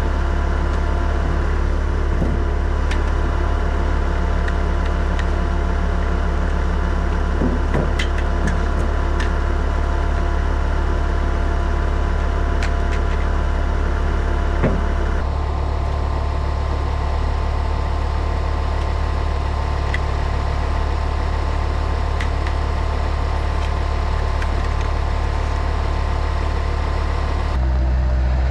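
A vehicle engine running steadily, with a heavy low hum and a few light knocks and rattles.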